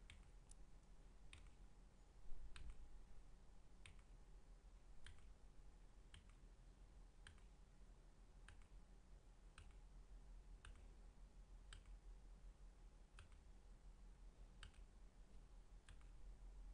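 Near silence with faint, sharp clicks at an even pace of about one a second, over a low steady hum.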